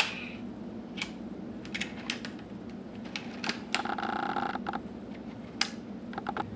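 Kiev 88C medium format camera's side winding knob and mechanism worked by hand: scattered sharp clicks, with about a second of rasping ratchet noise in the middle. The camera's shutter curtain is ripped.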